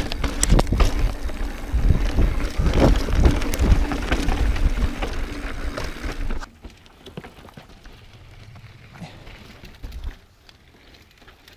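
Mountain bike riding down rough rocky singletrack: the tyres roll and bump over rock, and the bike rattles and clatters. The sound is loud for about six seconds, then drops much quieter, with a single knock near the end.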